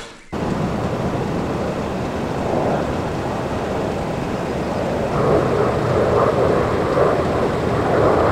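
Four-engine turboprop military transport, a C-130 Hercules, flying low overhead: a loud, steady drone of its propellers that cuts in abruptly and grows louder about five seconds in.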